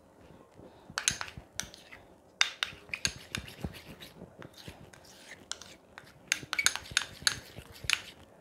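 Metal spoon clinking and scraping against a small container as it stirs a thick toothpaste-and-petroleum-jelly paste, in irregular strokes beginning about a second in.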